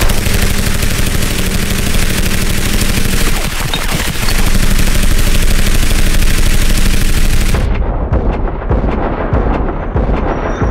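Long, continuous burst of automatic fire from an Auto-Ordnance Thompson submachine gun in .45 ACP, drum-fed, the shots too rapid to pick apart. About seven and a half seconds in, the firing stops and a lower rumble with scattered clicks carries on.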